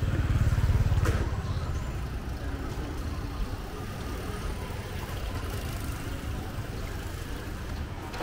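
Street traffic: a steady low engine rumble from motorbikes and vehicles, loudest in the first second and a half, with a single sharp click about a second in.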